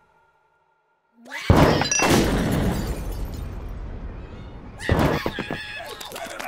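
Cartoon explosion sound effect: a short rising fizz, then a sudden loud blast with breaking glass that rumbles away over a few seconds. A second burst of crashing and clattering comes near the end.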